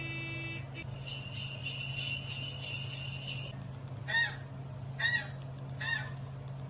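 Bells jingling with a high, bright ringing for a couple of seconds, then three short squeaky honks about a second apart. These are sound effects of the kind played to get a dog's reaction.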